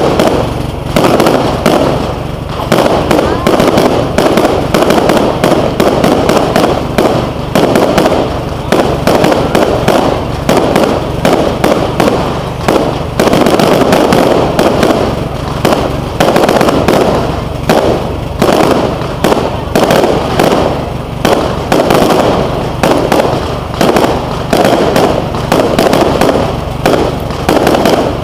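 Aerial fireworks display: a rapid, unbroken barrage of shell bursts and bangs, many per second, swelling and easing in waves.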